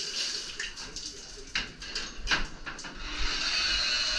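Water from a trigger hose nozzle spraying onto a surfboard briefly, then a few knocks and clunks. About three seconds in, an electric rotary sander-polisher starts up and runs at a steady whine as it is put to the board for wet sanding.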